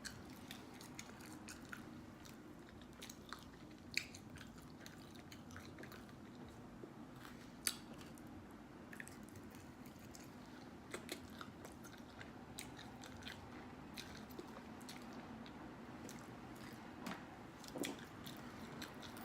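A person chewing food close to the microphone: faint mouth clicks and small crunches, with a couple of sharper bites about 4 and 8 seconds in, over a low steady hum.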